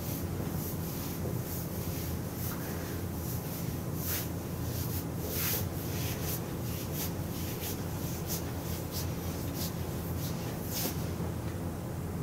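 Hands rubbing and kneading over a cotton T-shirt on the back and shoulders during a massage: a string of short, irregular fabric rustles and brushing strokes, over a steady low hum.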